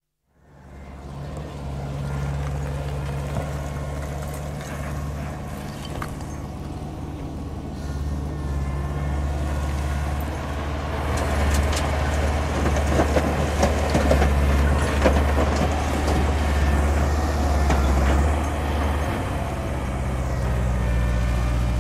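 Mechanical digger at work: its engine fades in and runs with a steady low hum, building up after a few seconds, with a busy stretch of metallic clanking and rattling in the middle before it settles back to a steady run.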